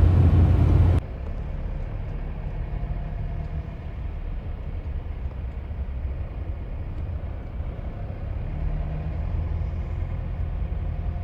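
Steady low rumble of a running vehicle, which drops suddenly to a quieter, even rumble about a second in.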